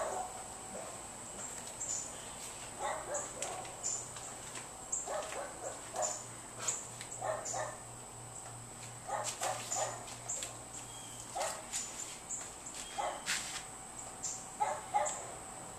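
A dog barking in short clusters of two to four, repeating every second or so, over a faint steady high-pitched whine.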